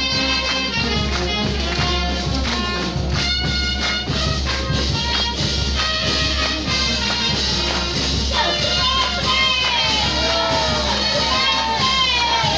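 Live church band playing a lively worship song with a steady beat. About eight seconds in, a wavering melody line comes in on top.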